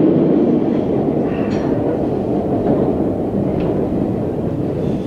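MBTA Orange Line subway train (Hawker Siddeley 01200-series cars), heard from inside the car as it runs from the tunnel into a station: a steady, dense rumble of wheels on rail that gets gradually a little quieter, with two faint short clicks along the way.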